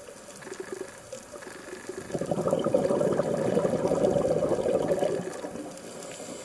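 A scuba diver's exhaled breath bubbling out of the regulator, heard underwater. It comes as one loud, crackling rush of bubbles starting about two seconds in and lasting about three seconds, with fainter bubbling and clicks before and after.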